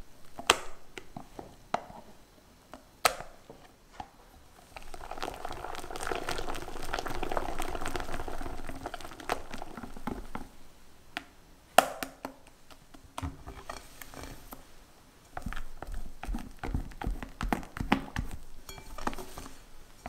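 A few sharp taps on a glass bowl, then a hand wire whisk beating heavy cream for about five seconds, a fast swishing with the wires rattling against the glass. Another sharp tap follows, and then a silicone spatula folds the thick whipped cream with soft squelching.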